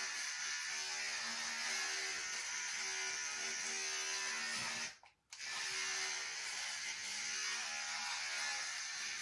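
Electric hair clipper buzzing steadily as it is run through short hair on the head. The sound drops out for a moment about five seconds in, then resumes.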